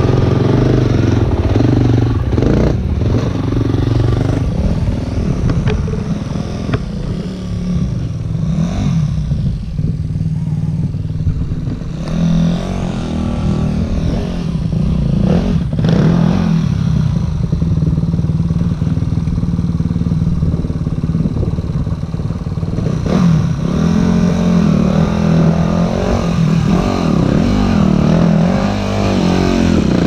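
Dirt bike engine running at low revs over rock, its pitch rising and falling as the throttle is worked, with a few brief knocks.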